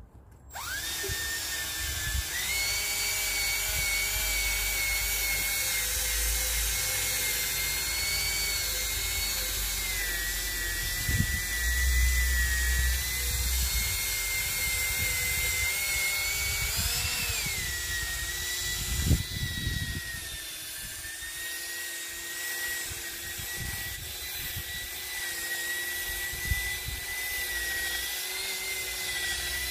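Cordless drill spinning a foam polishing pad, buffing a faded plastic headlight lens with rubbing compound. It runs as a steady motor whine that starts about half a second in and wavers slightly in pitch as the load changes, dipping briefly about two-thirds of the way through, with a few low thumps underneath.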